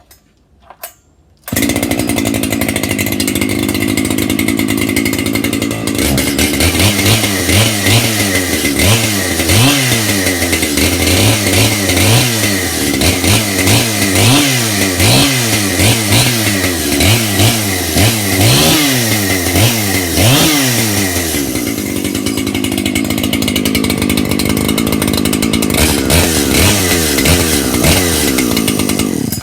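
Shindaiwa two-stroke chainsaw starting about a second and a half in and idling, then revved up and down repeatedly, about once a second, before settling back to idle and cutting off suddenly at the end.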